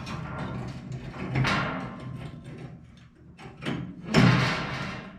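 Steel dump cart's tongue being handled and lined up with a riding mower's hitch: metal scraping and sliding with knocks, the loudest scrape about four seconds in.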